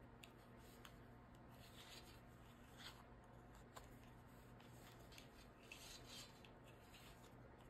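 Faint, irregular clicks and rubbing of large wooden knitting needles and chunky yarn as stitches are knitted and passed over during a bind-off, over a quiet room hum.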